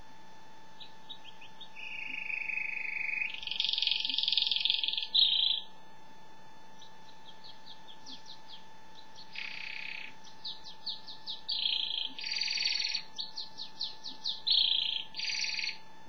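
Domestic canary singing: runs of quick repeated notes and long rolling trills. It pauses for about a second and a half after about five seconds, then sings on.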